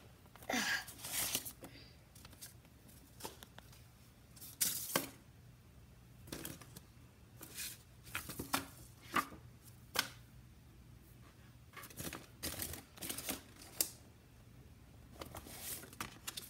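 Irregular rustles, taps and clicks of hands handling things close to the microphone, over a faint steady low hum.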